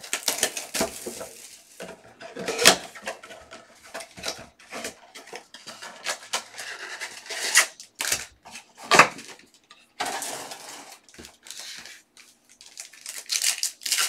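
Cardboard trading-card blaster box being ripped open and its foil packs pulled out and handled: a busy run of sharp rips, taps and crinkling, with a few loud snaps.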